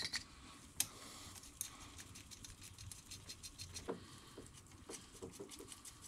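Faint clicks and light rattling of plastic ignition coil connectors and a wiring harness being handled and pushed back onto the coil packs. There are a few sharp clicks in the first two seconds and a run of small clicks later on.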